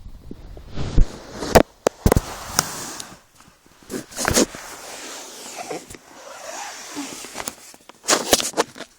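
A run of loud, sharp knocks and pops over rustling, close to the microphone, in three clusters: about a second in, around four seconds in, and near the end.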